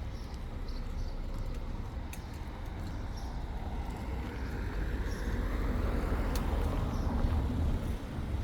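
A motor vehicle passing, swelling from about halfway through and easing off near the end, over a steady low rumble.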